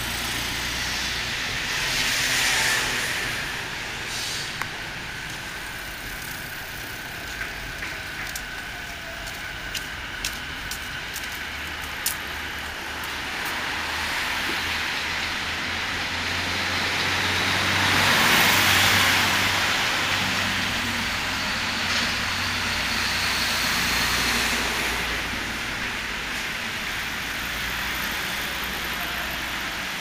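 Traffic noise from vehicles passing on an elevated viaduct overhead: a steady rumble with a low hum beneath, swelling loudest about two-thirds of the way through.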